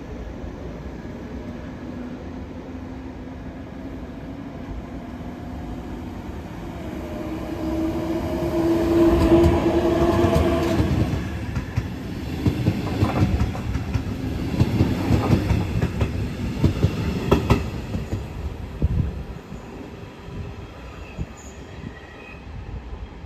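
A train passing through a station: the rumble builds to a peak with a steady tone, then the wheels clack rapidly over rail joints, and the sound fades away.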